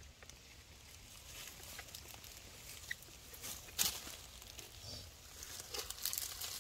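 Dry leaf litter and twigs rustling and crackling in short scattered bursts as a baby monkey and a person move on the forest floor, loudest in a brief crackle about four seconds in and a cluster of crackles near the end.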